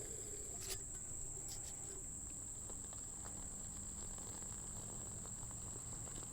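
Insects singing in one steady, high, unbroken drone, with a couple of faint handling clicks about a second in.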